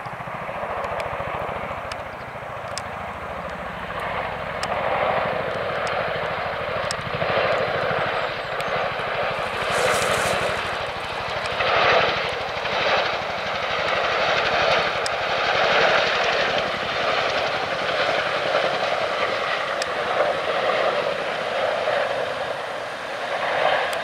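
Chinook tandem-rotor helicopter flying low, its rotor noise swelling and fading as it passes, loudest around halfway through.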